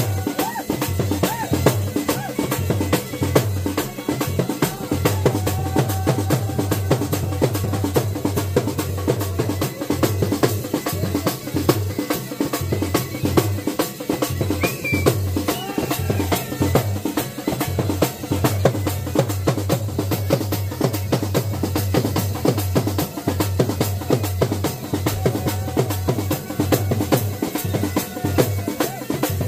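Dhol drums beating a fast, steady Bhaderwahi folk dance rhythm, with deep bass strokes under rapid sharper beats.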